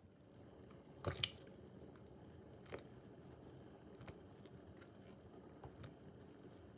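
A few light knocks and clicks over a low, steady hiss. The loudest are a quick pair about a second in, with single softer ones later.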